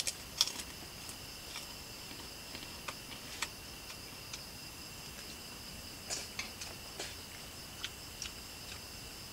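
Spoon clicking and scraping against a plate in a few scattered light taps, over a steady high-pitched chirring of night insects.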